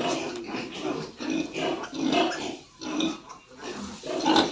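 A nursing sow and her newborn piglets grunting, with short calls about two a second and the loudest near the end.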